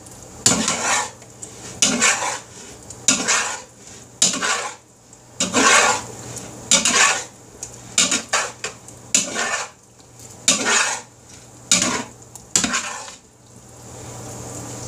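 Slotted metal spatula scraping and turning chopped chicken and vegetables in a large wooden bowl, mixing chicken pot pie filling in irregular strokes about once a second.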